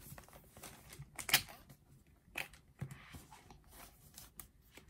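An eyeshadow palette being handled and opened: a series of light clicks and rustles, the sharpest about a second and a half in.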